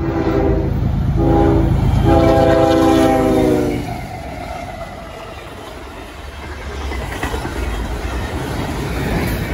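A CSX GE ES40DC diesel locomotive's horn sounds three blasts: one of about a second, a shorter one, then a long one of nearly two seconds, the end of a grade-crossing signal, over the low rumble of the approaching freight. After that, freight cars roll past with wheel clatter that grows louder toward the end.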